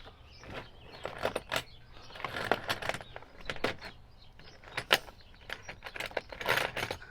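Irregular metallic clicks, clinks and short scrapes of hand tools and sockets being handled against a chainsaw's parts during disassembly, with a brief rattle about two and a half seconds in and again near the end.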